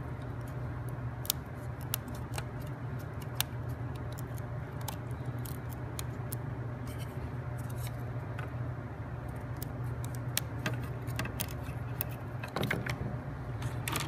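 Irregular light clicks and taps of a thin laser-cut plywood parts sheet as it is handled and a wooden piece is pressed out of it, over a steady low hum.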